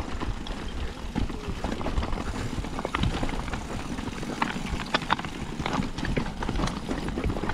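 Mountain bike riding over a rough trail: a steady low rumble of tyres and wind under frequent irregular sharp knocks and rattles from the bike.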